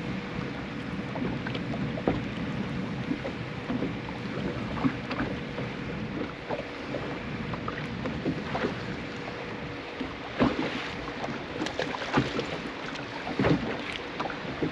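Water lapping and slapping against a fishing boat's hull, with wind on the microphone, a faint steady hum and a few sharp knocks.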